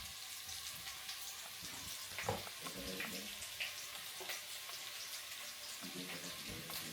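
Food frying in hot oil in a pan: a steady sizzle with small crackles and pops throughout, and faint voices murmuring in the background twice.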